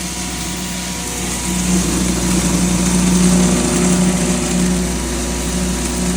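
7.5 hp maize grinder for poultry feed running steadily under load while grinding, a constant machine hum that grows louder about one and a half seconds in.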